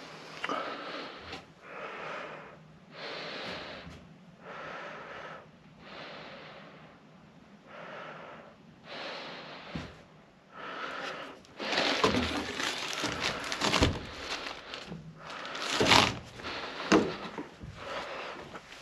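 A person breathing hard close to the microphone, about one breath every second and a half. From about twelve seconds in, louder rustling and scraping with a few sharp knocks takes over.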